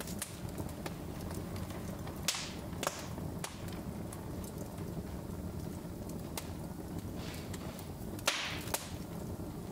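Wood fire burning in a fireplace: a steady low rumble of flames with scattered small crackles, and two louder sharp pops, each with a short hiss, about two seconds in and near the end.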